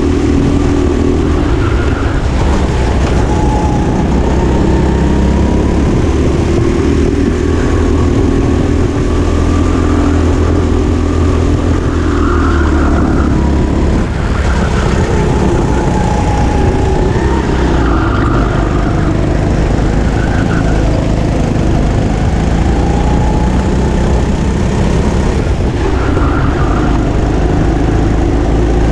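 Go-kart engine running hard at close range through a race lap, its pitch rising and falling over and over as the driver accelerates out of corners and lifts off for the next.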